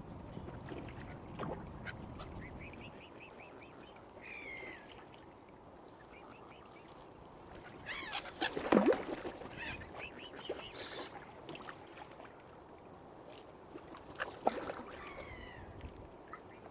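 Waterfowl calling on open water: a few scattered short calls, the loudest about halfway through, over a steady low background.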